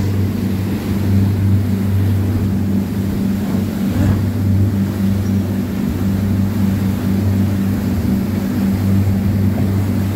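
Cruiser's Volvo Penta inboard engine running steadily under way: a constant low hum with no change in speed.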